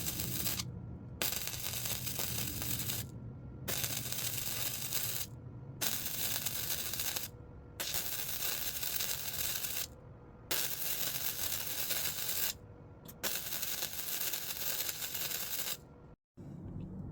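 Flux-core wire welder arc crackling and sputtering in a series of short weld runs, each one to two and a half seconds long, with brief pauses between them as the bead is laid in stitches. The welding stops abruptly shortly before the end.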